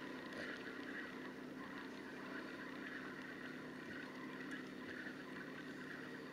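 Water lapping against a small boat, with a faint steady hum underneath and no sudden sounds.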